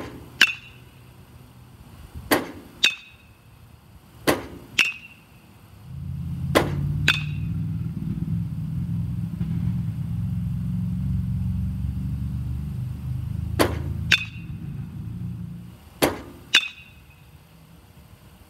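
Metal baseball bat hitting pitched balls in a batting cage: six sharp cracks, each followed about half a second later by a second knock with a short ring. A low rumble comes in about six seconds in and fades near sixteen seconds.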